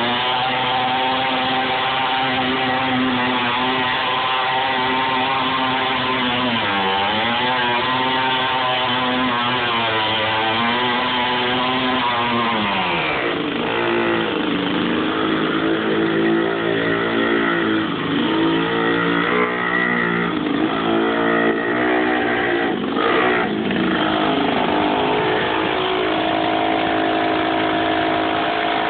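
Small engine of a homemade mini tractor running hard at first, then its pitch dips and rises again and again as it is driven and throttled across a lawn, settling into a steadier, lower running note near the end.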